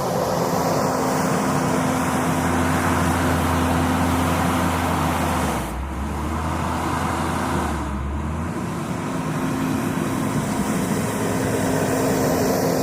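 JCB 426ZX wheel loader's diesel engine working at high revs. It eases off briefly about six seconds in, then revs back up.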